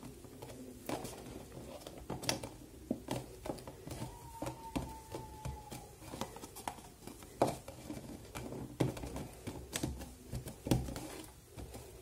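Hands handling a small cardstock box on a hard tabletop: irregular light taps, knocks and scrapes of the card as the freshly glued box is pressed shut and turned.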